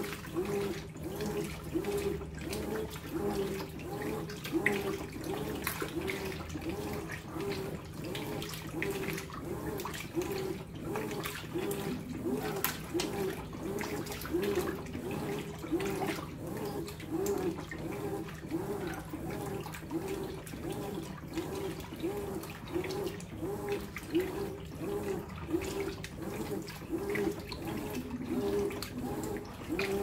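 Brastemp BWK14 14 kg top-load washing machine agitating a load of jeans in water: the motor hums through regular, evenly spaced back-and-forth strokes, a little faster than one a second, with water sloshing around the drum.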